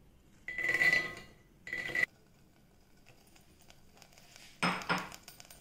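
Soaked chickpeas poured from a metal bowl into an empty metal pressure cooker, pattering and rattling on the pot's bottom in two short pours with a ringing clink of metal on metal. A brief clatter of the dishes follows near the end.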